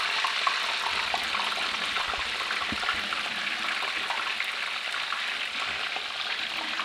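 Potato chunks deep-frying in a pot of hot oil: a steady sizzle dotted with fine crackles.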